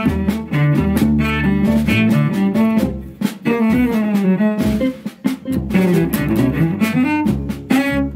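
Modern jazz quartet recording: cello and double bass lines moving in quick notes over drum kit, with frequent cymbal and drum hits.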